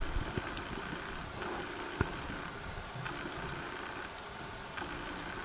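Underwater ambience: a steady hiss with scattered faint clicks and crackles, a faint intermittent hum, and one sharp knock about two seconds in.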